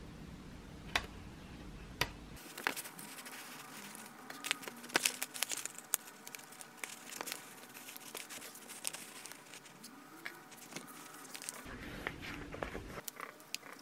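Plastic protective film for a MacBook's bottom case crinkling and crackling as it is handled, peeled and laid onto the laptop, with a run of small clicks and rustles, busiest about five seconds in.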